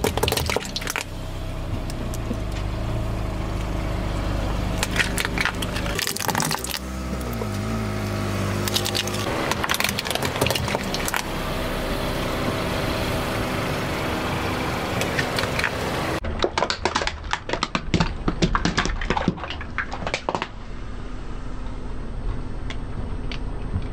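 A car tyre rolling over hard plastic toy soldiers and toy vehicles on asphalt, the plastic cracking and snapping in clusters, over the car's running engine. The cracks come in bunches, near the start, about 5 and 10 seconds in, and in a dense run between about 16 and 21 seconds.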